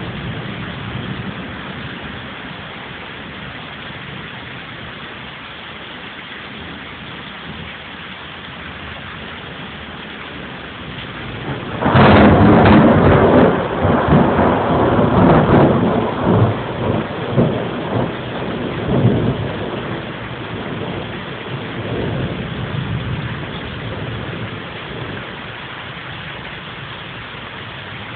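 Thunderstorm rain falling steadily, recorded on a phone's microphone. About twelve seconds in, thunder breaks suddenly and loudly, then rolls on in uneven rumbles for around ten seconds before fading back under the rain.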